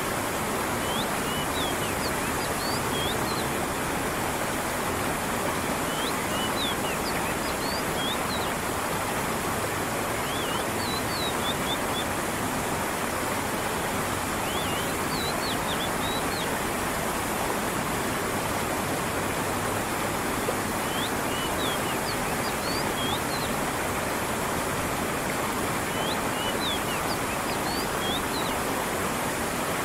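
Steady rush of a stream with falling water, and small birds giving short, high chirps in brief groups every few seconds.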